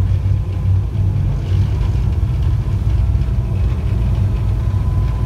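Sea Ray Sundancer's twin engines running steadily at low revs, a deep even rumble, with a faint steady whine above it.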